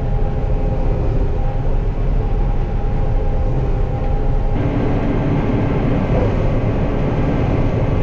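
John Deere 9500 combine running steadily while harvesting soybeans: a constant machine drone carrying several steady tones. About halfway through the sound changes abruptly to a brighter, hissier drone with a new lower hum.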